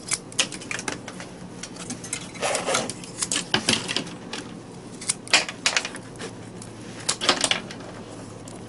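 Mini pruning shears snipping through thin twigs: a series of sharp snips and clicks in short clusters every second or two.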